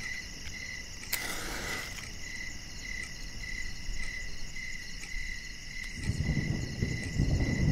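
Crickets chirping steadily. About a second in, a match is struck with a sharp scratch and flares with a short hiss. Near the end a low rumble rises.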